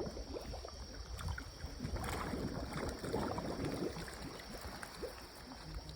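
Seawater sloshing and lapping against a breakwater, with wind rumbling on the microphone.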